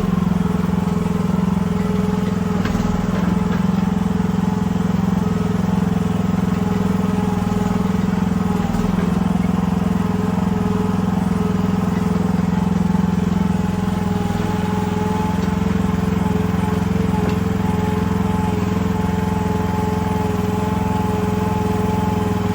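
Gasoline engine of a Chinese mini excavator running at a steady speed as the machine travels on its tracks.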